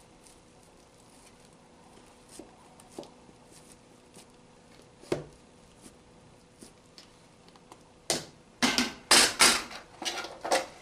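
Quiet handling with a few light clicks and a single knock, then, from about eight seconds in, metal loaf pans clattering against each other in quick bursts as one is taken off a stack.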